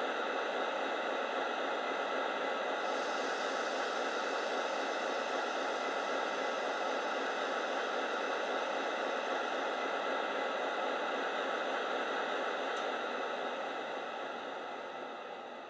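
Sound decoder of a Hornby Class 56 model diesel locomotive playing its standing engine sound through a small slab speaker: a steady, hissy engine noise with no deep rumble. A higher hiss joins about three seconds in, and the sound dies away over the last couple of seconds.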